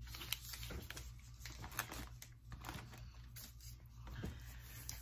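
Light scattered clicks and rustling of chocolate-bar wrappers and snack packaging being handled.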